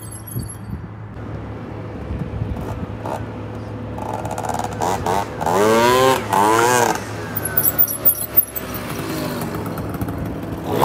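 Adly Silverfox scooter's two-stroke engine, bored to 70cc, revving as the scooter rides up and past, its pitch sweeping up and down several times and loudest about six seconds in.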